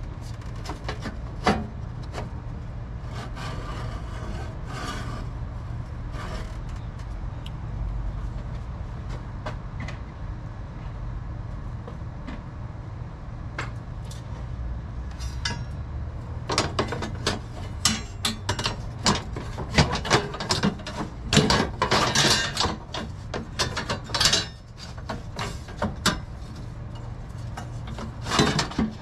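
Hands working on a vehicle with tools: scattered clicks and knocks, then a little past halfway a dense run of scraping and clanking that lasts several seconds, over a steady low hum.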